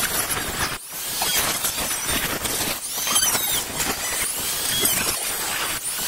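Corded rotary tool with a thin abrasive cutoff wheel grinding through a terracotta clay tray, a harsh gritty noise laced with high squeals as the disc bites into the clay. The grinding eases off briefly twice, about a second in and again near the end.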